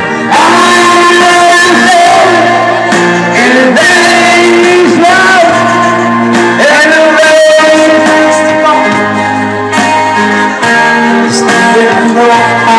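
Live singing over an electronic keyboard: a voice holds and bends long sung notes above sustained chords and a bass line that changes every second or two.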